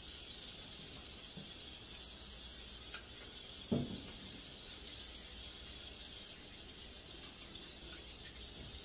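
Kitchen tap running steadily while hands are washed under it, with one dull thump about four seconds in.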